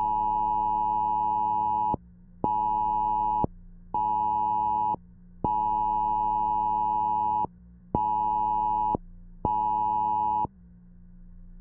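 Electronic alert tone of a mock Emergency Alert System broadcast, sounding in a pattern of one long and two short beeps, played twice, all at one steady pitch, over a low steady drone.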